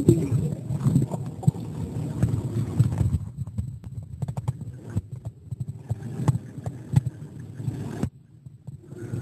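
Muffled underwater sound of a swimming pool as heard by a submerged camera: a low churning rumble of moving water with many small, irregular clicks and knocks. It goes much quieter about eight seconds in.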